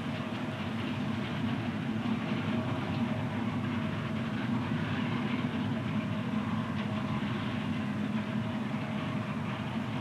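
Corn combine harvester running steadily: an even engine drone with a constant rattle from the machinery.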